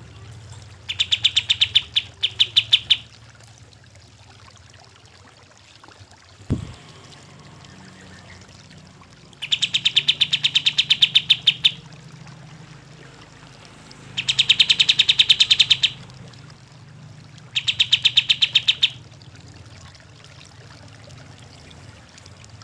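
Kapas tembak bulbul calling: four bouts of fast, evenly pulsed chattering notes, each lasting one and a half to two and a half seconds, with a single low thump between the first and second bouts.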